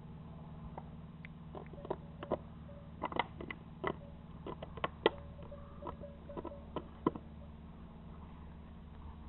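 Dog chewing an empty plastic bottle: irregular cracks and crinkles of the plastic between its teeth, loudest about five seconds in, stopping after about seven seconds.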